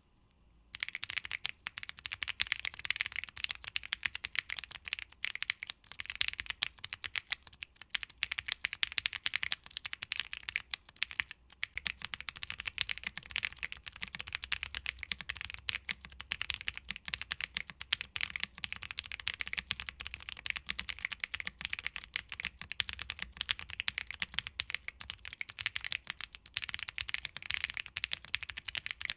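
Continuous fast typing on a KBDfans Tofu65 2.0 mechanical keyboard, with Gateron Blizzard tactile switches in a PC plate and PBTfans Classic Hangul ABS keycaps: a steady stream of keystroke clicks and clacks. It starts about a second in.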